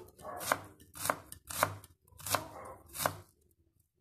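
Kitchen knife slicing a red onion on a wooden cutting board: five sharp chopping strokes, about one every two-thirds of a second, each knocking on the board, stopping a little past three seconds in.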